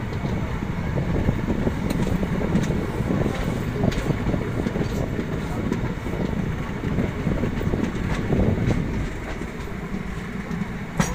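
Running noise of a moving passenger train heard from inside its coach doorway: a steady rumble of wheels on rails, with scattered sharp clicks and a cluster of them near the end.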